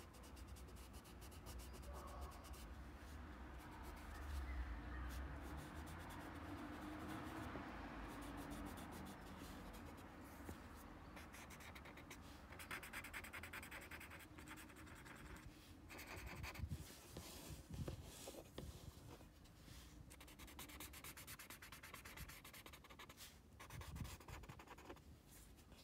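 Paper blending stump (tortillon) rubbing shading into a small paper drawing tile, a soft steady rubbing. About halfway through it gives way to a fine drawing tip scratching across the paper in many short strokes, with a few light knocks of hand and tool on the table.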